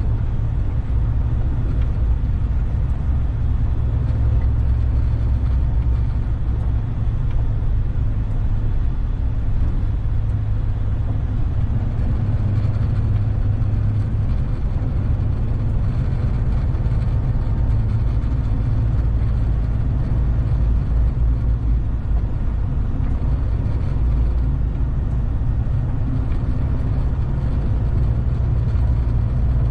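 Heavy truck on the move, heard from inside its cab: a steady low rumble of engine and road noise.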